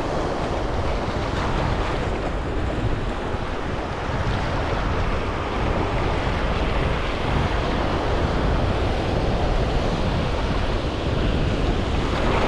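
Ocean surf washing in, with steady wind buffeting the microphone as a low rumble.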